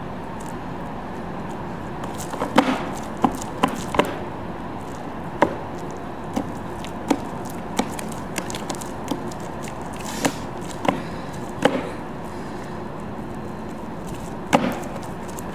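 Ballet slippers stepping and stamping on a plywood platform coated in wet drywall mud. About fifteen irregular sharp knocks and slaps, in clusters, over a steady background hum.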